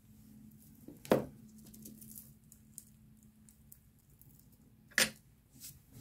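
Close handling noise from tweezers and fingers working loose shed skin off a bearded dragon: faint scattered ticks and rustles over a low steady hum, with two sharp clicks, one about a second in and one near the end.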